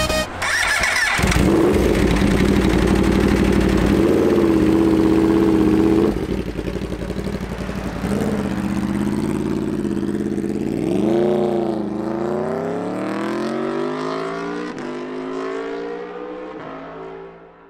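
Superbike engine running loud at high revs, then accelerating through the gears, its pitch climbing in short steps and fading as the motorcycle pulls away.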